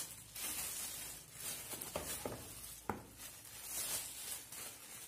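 Thin clear plastic bags crinkling and rustling as a pair of shoes is pulled out of them, with a few light knocks near the middle.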